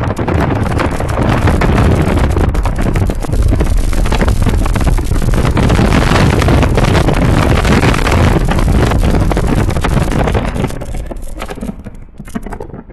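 Wind buffeting the microphone of a camera mounted at the window of a moving Mazda RX-8, over the car's road noise; it is a loud, fluttering rush that dies down near the end.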